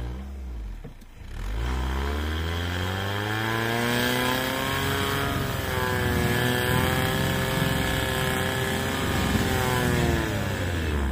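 ATV engine revving hard while the quad sits bogged down in wet snow and slush, its tyres spinning and throwing slush. The revs dip about a second in, climb steeply, hold high, then fall away near the end.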